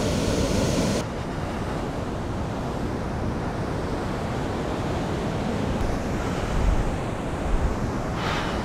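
Ocean surf washing onto a beach as a steady rush of noise. The sound drops and turns duller about a second in, and wind buffets the microphone in a few low thumps later on.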